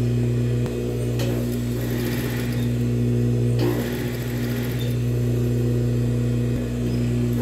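Industrial straight-stitch sewing machine running, its motor humming steadily as it sews a long gathering stitch along a folded fabric ruffle strip, the machine set to its longest stitch.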